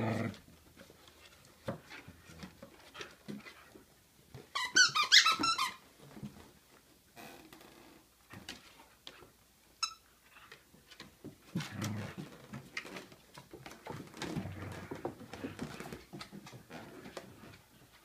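Two whippets tussling over a plush tug toy: low growls come and go, with short clicks of claws on a wooden floor. About five seconds in there is a loud burst of high-pitched squeaking lasting about a second.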